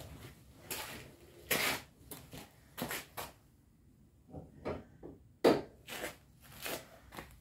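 Short scuffs, rustles and light knocks of a person moving and handling things close by. The loudest strokes come about a second and a half in and again about five and a half seconds in.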